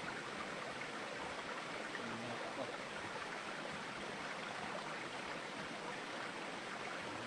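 A steady rushing noise of running water, even and unbroken.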